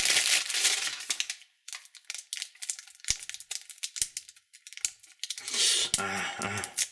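Crinkly candy wrapper being crumpled and torn open, dense for the first second and a half, then thinning to scattered crackles and clicks.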